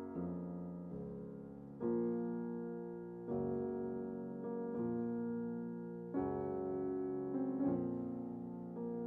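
Soft piano music: slow sustained chords, a new one struck every second or two and fading away before the next.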